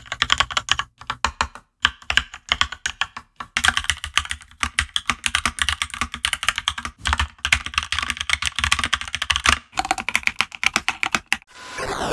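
Typing on a computer keyboard: fast runs of key clicks broken by brief pauses between bursts.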